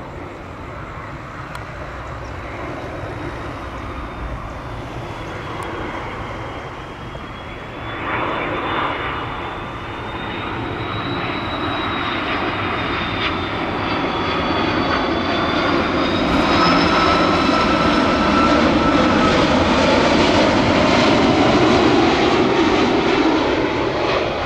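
An Airbus A330-300 airliner on final approach, its two General Electric CF6-80E1 turbofan engines running as it comes overhead: a rumble that grows steadily louder, with thin whining tones that slowly glide up and down in pitch above it, starting to fade near the end.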